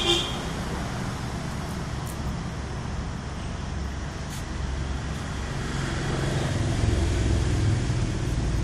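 Road traffic noise: a steady wash of passing vehicles, with a low engine rumble growing louder over the last few seconds. A brief high-pitched beep sounds right at the start.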